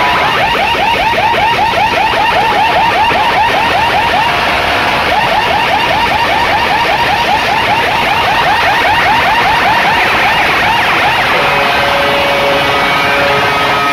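Large DJ sound-system speaker stacks blasting a loud, distorted siren-like effect: a rising sweep repeating about four times a second, which gives way near the end to steady held tones.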